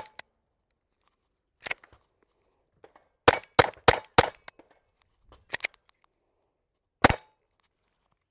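Glock 44 .22 LR pistol firing single shots at an uneven pace: one, then a quick string of four, a close pair, and a last shot, emptying the magazine.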